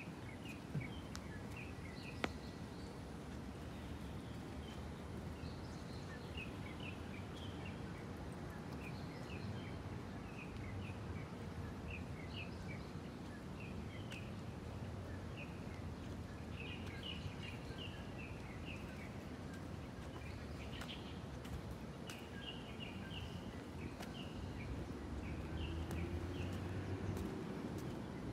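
Birds chirping outdoors: many short, high calls come in quick clusters throughout. Under them is a steady low background rumble that swells slightly near the end.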